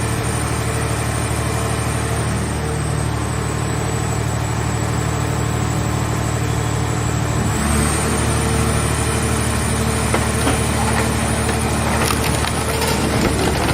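Hydraulic scrap car baler running: its engine and hydraulic pump drone steadily with a high whine. About halfway through, the pitch shifts as the press comes under load. Scattered cracking and crunching follow as the car shell is crushed.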